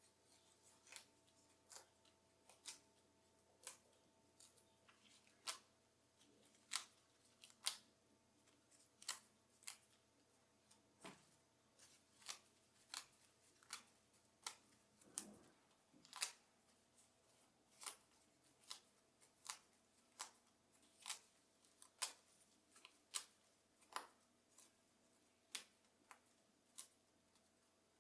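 Scissors snipping in a steady run of sharp clicks, about one a second, over a faint steady hum.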